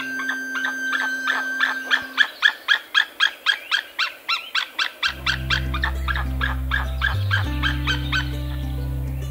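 White-tailed eagle calling: a long run of short, high calls, about four a second, that grow softer and stop near the end. Background music with steady low notes comes in about halfway.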